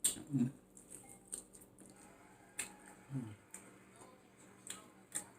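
Close-up eating sounds: sharp wet mouth clicks and chewing as food is bitten and chewed, with two short hummed "mm"s of enjoyment.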